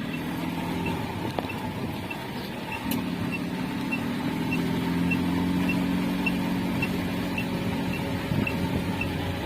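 Toyota Yaris driving along, with a light regular ticking about twice a second over the steady running noise. The ticking is the strange noise traced to the right rear wheel.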